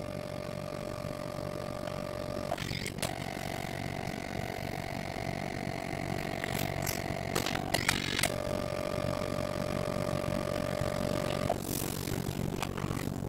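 Pocket photo printer's motor whining steadily as it feeds and prints a photo, broken twice by short pauses with clicks, then stopping shortly before the end with a few clicks as the finished print comes out.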